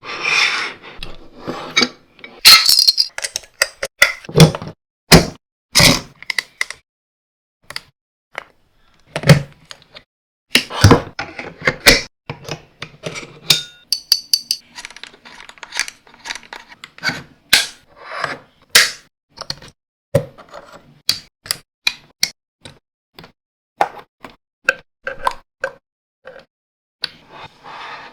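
Camera rig parts being handled and fitted together: an irregular run of sharp clicks, clacks and metallic clinks, some short and some ringing briefly, with short pauses between.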